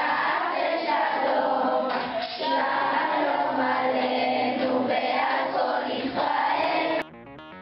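A group of voices singing a song together in chorus, breaking off abruptly near the end.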